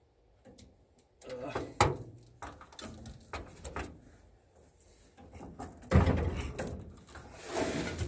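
Scattered metallic clicks and rattles of an M35A2 speedometer cable and its metal end fittings being handled and fed along the truck's frame, with a louder rustling stretch about six seconds in.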